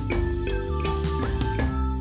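Instrumental background music with a steady beat, drums and a bass line under pitched melody notes.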